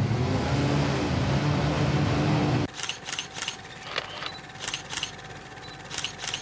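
Several motorcycle engines running and revving loudly, cut off suddenly a little under halfway through. They are followed by a series of short, sharp electronic swooshes and clicks over a faint steady tone, the sound effects of a TV news title stinger.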